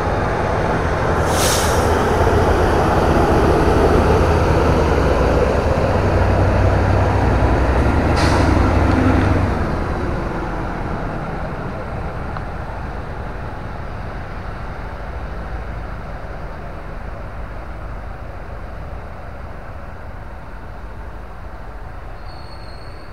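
Diesel engines of a Plasser & Theurer MTT track tamping machine running with a steady deep rumble, loud for about the first ten seconds and then easing down. Two short air hisses come about a second and a half in and again about eight seconds in.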